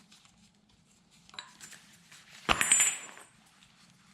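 Metal clinking and clattering: a tool or small metal part set down with a short rattle and bright ringing about two and a half seconds in, after a few light clicks.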